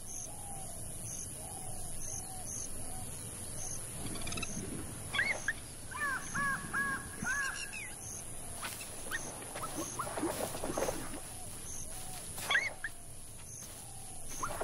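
Outdoor wildlife ambience: birds calling in short repeated rising-and-falling notes, a run of four coming in the middle, over a steady insect drone with a regular faint chirp about twice a second.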